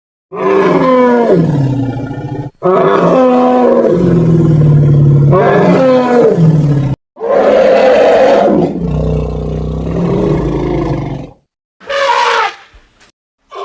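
A string of about four animal roar sound effects played back to back. Each is a loud pitched roar with its pitch sliding down and up, and each cuts off suddenly into a brief silence before the next; the last one is shorter and fainter.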